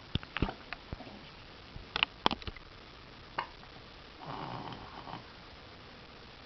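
Hiccups: a run of short, sharp hiccups spread unevenly over the first few seconds, then a longer breathy sound about four seconds in.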